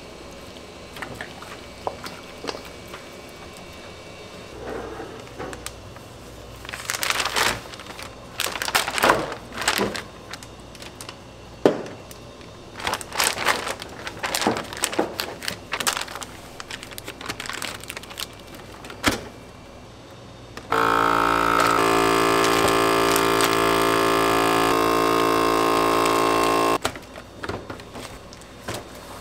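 A countertop vacuum sealer's pump runs with a steady, loud hum for about six seconds, drawing the air out of a bag, then cuts off. Before that, a plastic bag crinkles and rustles as it is filled by hand.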